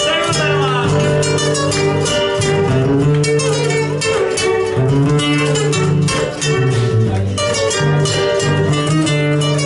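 Folk guitars playing an instrumental passage, rapid plucked notes over a steady bass line, with no singing.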